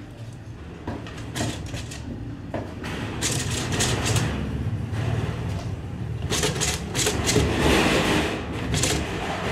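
Just-slaughtered chicken thrashing in its death throes inside a metal drum, wings and feet beating and scraping against the metal sides in irregular bursts, loudest over the last few seconds. A steady low hum runs underneath.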